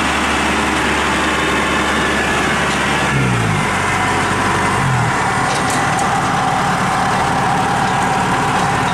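Kubota DC-70 combine harvester's diesel engine running steadily while the drive levers are worked, its low note shifting about three seconds in and a steady whine coming in about halfway through.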